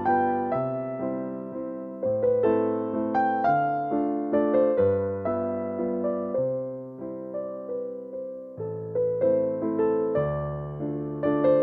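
Background piano music: a gentle melody of single notes over slower bass notes, each note struck and fading.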